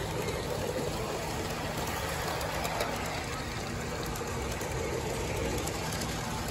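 Large-scale (G-scale) model freight cars rolling past on garden-railway track: a steady rumble of wheels on the rails, with a few light clicks.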